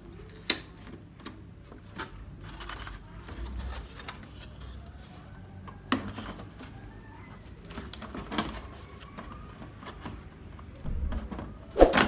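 Scattered clicks and knocks of small screws being driven with a screwdriver and TV panel parts being handled, with the loudest knock near the end.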